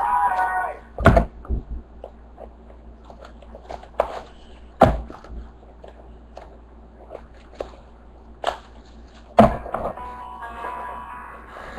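Four sharp thunks (about a second in, near five seconds, and two close together around eight and nine seconds) with small clicks and rustle between them, as cardboard card boxes and packs are handled and opened on a table. Background music plays over the first second and again near the end.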